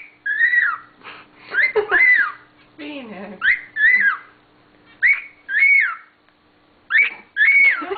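Pearl cockatiel singing: clear whistled notes that swoop up and down, given in short phrases with brief pauses between them.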